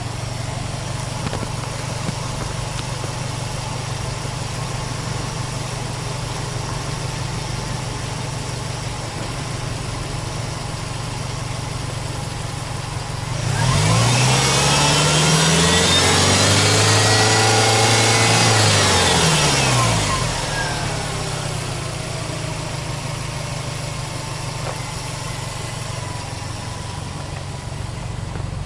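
Subaru Impreza WRX STi's turbocharged EJ20 flat-four engine idling steadily, then revved up about halfway through, held for several seconds and let fall back to idle.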